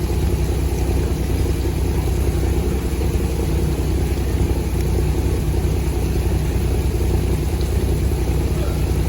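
Boat engine running steadily at a constant speed, a low even drone.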